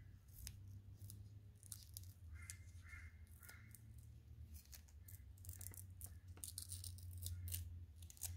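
Blue masking tape being picked and peeled off a freshly painted wooden lipless crankbait: faint, scattered crackles and ticks, with a few short scrapes, over a low steady hum.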